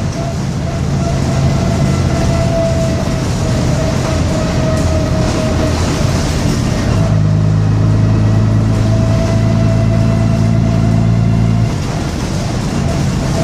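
Bristol RELL6L single-deck bus's diesel engine and drivetrain on the move: the engine note falls away for the first few seconds, comes back strongly about halfway through and holds steady, then drops again near the end, while a high, steady whine runs on underneath.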